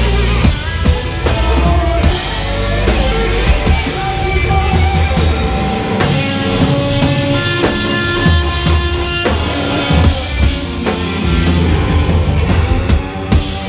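A rock band playing live, loud: drum kit hits under electric guitars.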